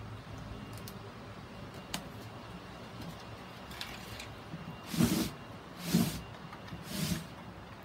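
Three short scraping rustles about a second apart as a plastic grid mounting board packed with sphagnum moss is shifted and turned over on a plastic tarp, after a single light click.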